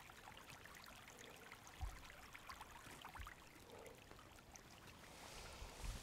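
Faint flowing river water, close to near silence, with a soft low thump about two seconds in.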